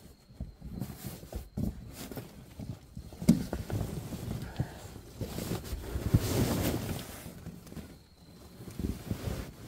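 A person crawling into a small tent: tent fabric rustling, with scattered knocks and bumps from knees and hands. There is a sharper knock about three seconds in and a louder stretch of rustling around six seconds in.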